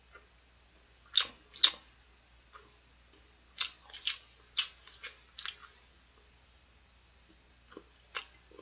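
Close-up eating sounds of fried chicken being pulled apart with the fingers and chewed: a series of short, sharp crackles and smacks, two about a second in, a quick cluster of about six around the middle, and a couple more near the end.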